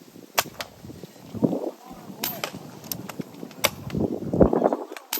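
Air rifles firing: four sharp cracks, roughly one every second and a half, with muffled lower sounds between them.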